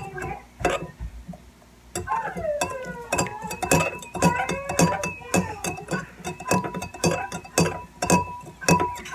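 Metal spoon clinking repeatedly against the inside of a ceramic mug, stirring borax into water until it dissolves; quick clinks about two or three a second.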